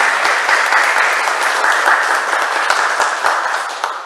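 A roomful of people applauding, with many overlapping hand claps; the applause dies away near the end.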